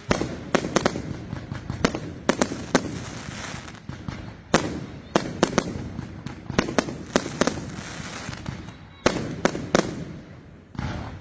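Firework batteries firing: a string of sharp bangs from shells bursting overhead, sometimes two or three within a second, each trailing off in an echo, with a short lull about two-thirds of the way through.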